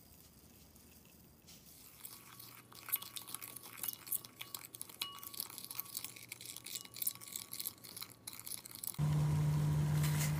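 A spoon stirring soy-sauce dressing in a glass bowl, with rapid irregular scraping and clicking against the glass. About nine seconds in this gives way abruptly to a louder steady low hum, heard with a steel pot of water boiling on a gas burner.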